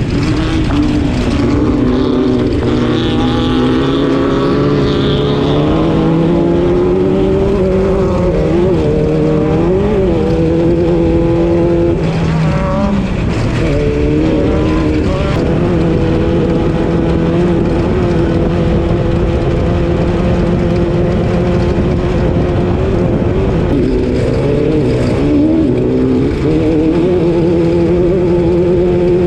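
Class 12 off-road race car engine running hard under load. Its pitch holds mostly steady, with a few brief dips and climbs as the throttle lifts and comes back on.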